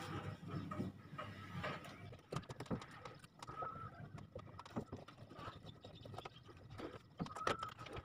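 Irregular clicks and knocks of hands working plastic fittings on a top-loading washing machine as a water inlet hose is fitted to its inlet.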